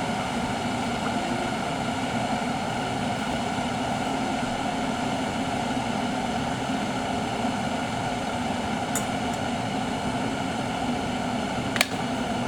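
Microwave oven running with a steady hum, with a single sharp click near the end.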